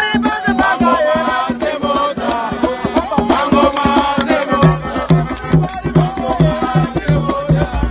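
A group of fans singing a chant together to hand drums beaten with bare palms in a quick, steady rhythm. A low pulsing beat, about two a second, joins in about halfway through.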